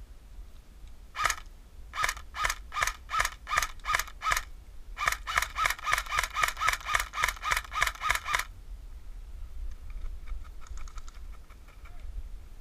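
Airsoft gas blowback M16-style rifle firing semi-automatic: a single shot, then a string of about seven, then a faster string of about fifteen, each a sharp clack with a metallic ring. Fainter, quicker airsoft gunfire follows near the end.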